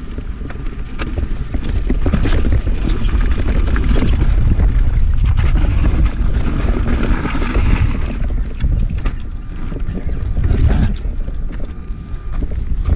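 Mountain bike descending rocky singletrack: wind rumbling on the microphone, tyres crunching over loose stones and gravel, and the bike rattling with many short knocks and clicks.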